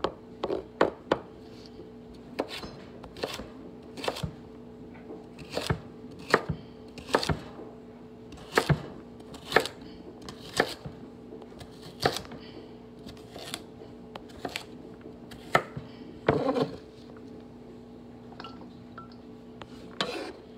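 Chef's knife chopping carrots on a wooden cutting board: sharp knocks at an uneven pace, about one a second, with a longer rasping stroke about sixteen seconds in and a short pause near the end. A steady low hum runs underneath.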